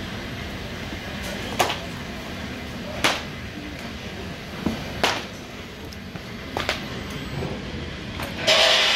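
Linoleum cutting machine running with a steady mechanical noise as the sheet feeds through its cutter heads, with a sharp click every one and a half to two seconds. A short, loud hiss comes near the end.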